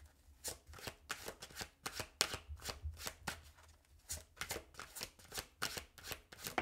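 A deck of tarot cards being shuffled by hand: a quick, uneven run of short card slaps and flicks, several a second.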